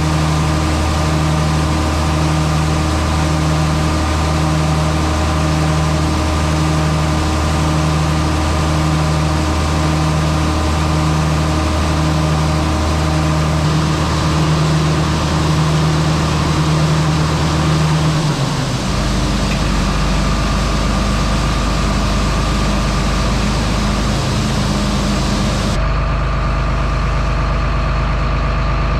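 Engine of heavy harvest machinery running steadily, with a low pulse about once a second. The sound shifts abruptly about eighteen seconds in and again near the end, as if cut between different machines.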